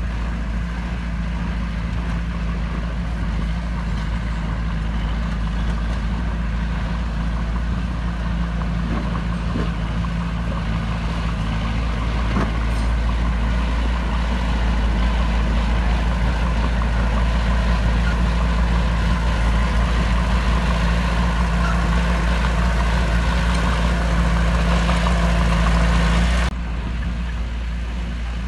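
Heavy diesel earthmoving machinery running steadily, with a deep low rumble, getting somewhat louder about halfway through. Near the end it drops suddenly to a quieter engine sound.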